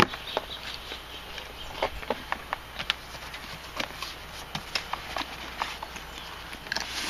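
Cardboard box flaps being handled and folded back: scattered light taps, rubs and creaks of cardboard, growing into a louder rustle near the end.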